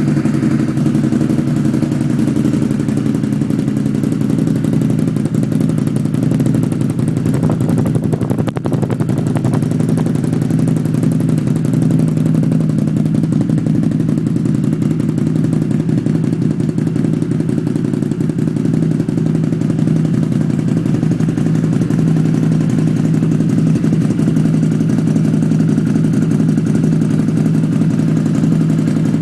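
Can-Am vehicle's engine running steadily with an even, fast-pulsing exhaust note and no revving.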